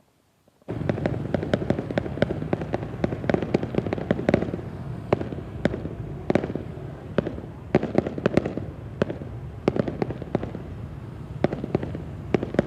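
Aerial fireworks display: a dense, continuous run of overlapping bangs and crackles over a low rumble, starting abruptly about a second in.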